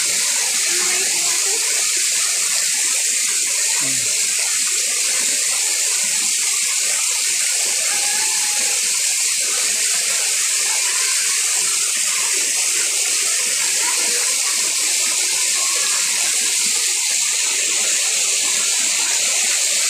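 Small waterfall pouring over rocks: a loud, steady rush of falling water.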